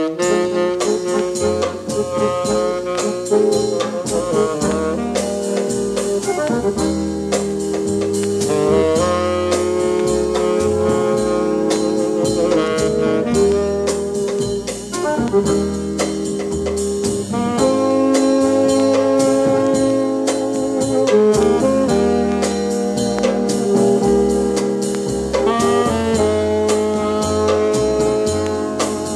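Dance-band jazz playing from a vinyl LP on a battery-powered portable turntable: horns such as saxophone and brass over a steady beat.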